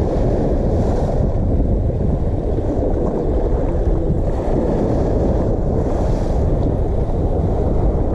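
Wind buffeting the microphone outdoors: a steady low rumble with no breaks.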